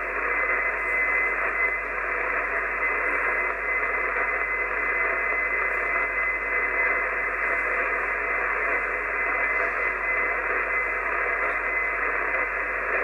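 Steady hiss and static from an Icom IC-751 HF transceiver's receiver, tuned to an open 6516 kHz channel with no station transmitting. The noise is confined to the narrow voice band, with a faint steady whistle running through it.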